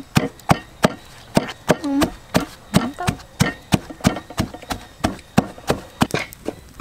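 Wooden pestle pounding red chillies in a wooden mortar: steady, sharp knocks at about three strokes a second.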